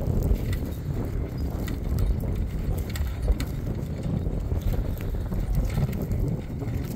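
Uneven low rumble of wind on the microphone, with scattered light clicks and clinks from a pair of draft horses pulling a walking plough through stubble.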